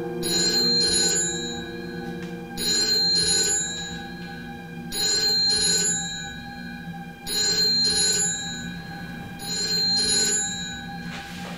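Mobile phone ringing, five rings spaced about two and a half seconds apart, over a steady low musical drone.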